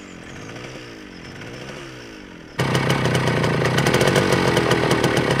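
The pedals of a Riga-13 moped are cranked with the clutch lever held, giving a whir that rises and falls with each stroke. About two and a half seconds in, its single-cylinder two-stroke D6 engine is heard running steadily at a rapid beat.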